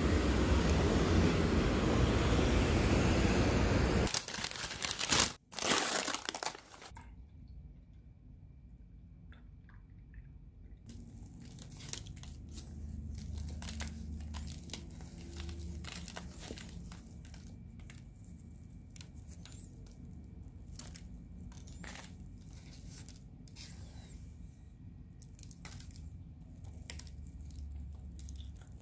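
A loud, steady rush of noise for the first few seconds, then paper bag and wrapper crinkling and rustling in many short crackles as a sugar-dusted oliebol is handled and torn apart.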